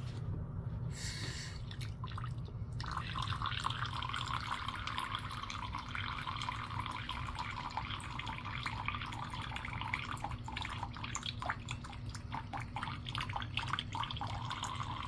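A thin stream of water running from a bathroom faucet into the sink basin, starting about three seconds in, with many small irregular splashes and drips as a cat laps at the stream.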